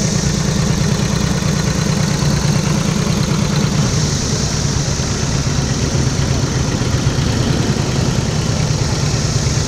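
Vintage motorcycle with a sidecar running at low parade speed as it passes close by, a steady low pulsing engine note that drops slightly in pitch about four seconds in.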